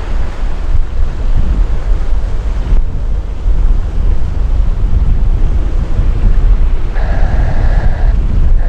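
Strong wind buffeting the microphone, a loud, even low rumble, with a brief pitched sound about seven seconds in.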